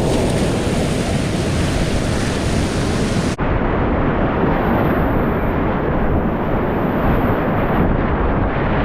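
Whitewater rapids rushing loudly and steadily, with wind and buffeting on the microphone; the sound breaks off for an instant about a third of the way in.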